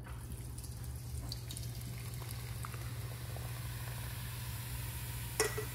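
Coca-Cola pouring into a ceramic slow-cooker crock and fizzing, with fine crackling from the bubbles. A short ringing clink near the end.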